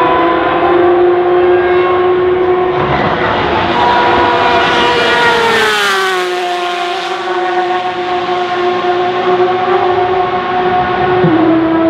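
Porsche 991.2 RSR race car's mid-mounted 4.0-litre flat-six on open exhaust, very loud and held at steady high revs as the car comes by. Its pitch drops as it passes about six seconds in, then holds steady as it goes away, with a small step down in pitch near the end.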